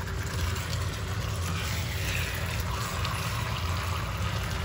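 Bone-in meat frying and bubbling in a tomato and onion sauce in a pot, stirred with a wooden spoon, over a low steady rumble.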